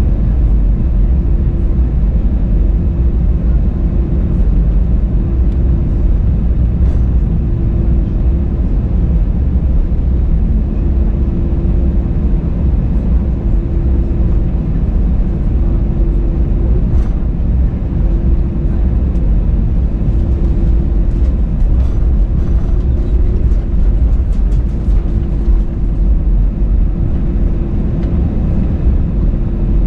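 Airbus A320-200 cabin noise: a loud, steady drone of engines and airflow with a steady hum running through it.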